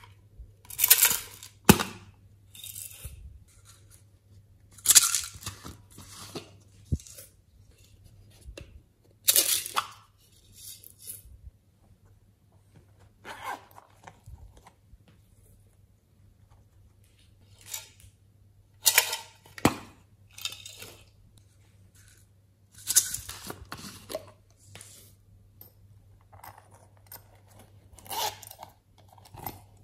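Close-up handling of plastic packaging and small zippered vinyl pouches: zippers being pulled open, with tearing and rustling as contents are taken out and tipped into a glass tray. Short bursts come every few seconds with quiet between them, and there are a couple of sharp clicks.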